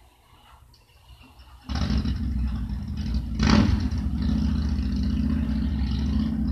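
Garden-scale model train running along the track, heard from the car it pulls: a loud, steady rumble that starts suddenly about two seconds in, with a brief louder surge about halfway through.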